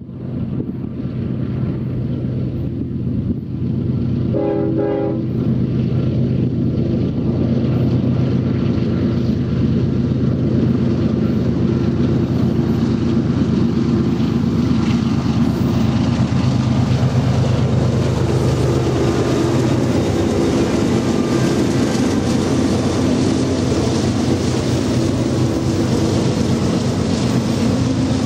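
Double-stack freight train approaching and passing, its diesel-electric locomotives running under load and growing louder. One short horn blast sounds about four seconds in. Near the end the container cars roll by with wheel rumble and clatter on the rails.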